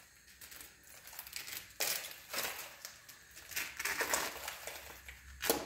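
Scattered faint crunches and clicks of broken tile and mortar debris, with a louder knock about five and a half seconds in.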